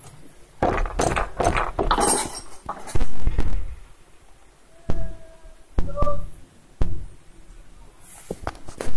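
Handling noise on a phone's microphone: rubbing and irregular knocks from fingers on the phone, with two short squeaks about five and six seconds in.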